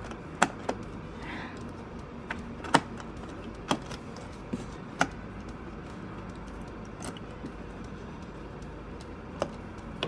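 Irregular sharp clicks and taps, about eight of them, the loudest near three and five seconds in, as fingers press the memory compartment door on the back of a late-2015 27-inch iMac to snap it shut. The door is stiff and is not yet latching.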